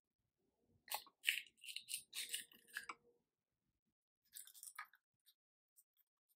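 Brown eggshell cracking and being pulled apart by hand over a bowl: a cluster of crackly clicks from about one to three seconds in, then a shorter crackle about four and a half seconds in.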